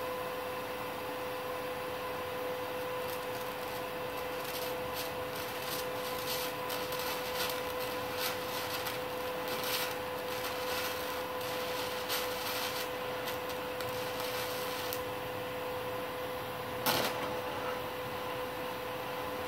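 Multipro MMA 120 G-KRK inverter welder in use for manual argon (TIG) welding: a steady hum, with irregular crackles and ticks from the arc from about three seconds in until about fifteen seconds. One sharp click comes near the end.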